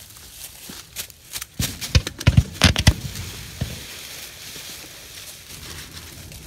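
Footsteps crunching through dry fallen leaves, with a burst of heavy steps about two seconds in, then a softer rustle of leaves.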